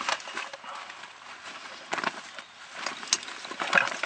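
Irregular rustling with scattered light clicks and knocks, a few sharper ones in the second half.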